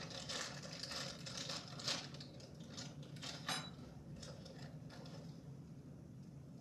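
Small metal PC-build hardware being handled: light clinks and clicks, one with a brief metallic ring, busiest in the first few seconds, then only faint handling noise.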